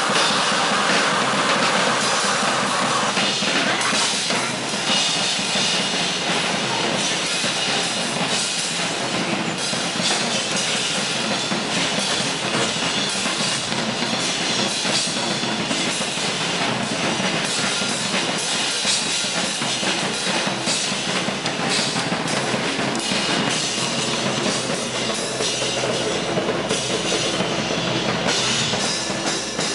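Live noise music: a loud, dense wash of harsh noise with rapid, crashing drum-like hits throughout. A mid-pitched hiss layer drops out about three seconds in.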